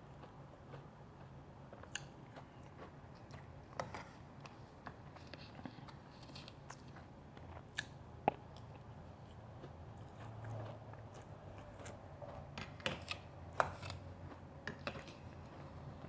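Shaved ice being bitten and chewed, giving irregular sharp crunches that come thickest in the last few seconds.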